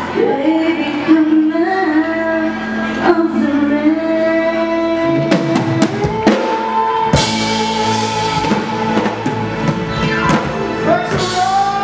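A live band with singers: long held sung notes over drum kit, electric guitar and keyboard, with a drum fill about halfway through and cymbal crashes after it.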